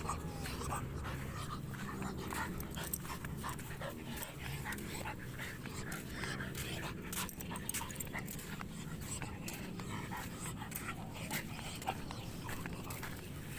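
A dog panting, over a steady low rumble, with frequent short clicks and crunches throughout.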